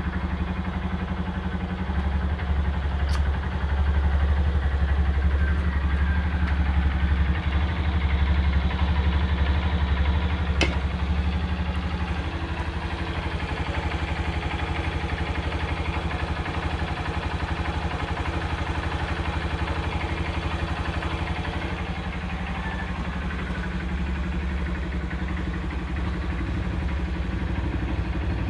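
Honda New Megapro's single-cylinder motorcycle engine idling steadily, running a little louder for several seconds near the start, with two sharp clicks.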